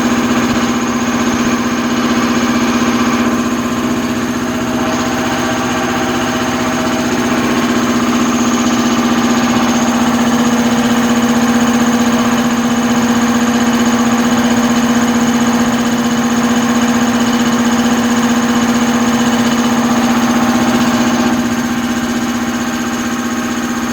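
Three-cylinder 5 HP, 17 CFM air compressor running, a loud steady mechanical drone that holds an even pitch throughout.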